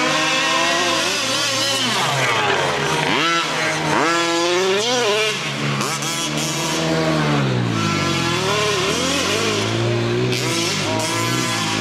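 Losi radio-controlled truck's small two-stroke engine revving up and down over and over as the truck is driven, its pitch rising and falling sharply with each burst of throttle.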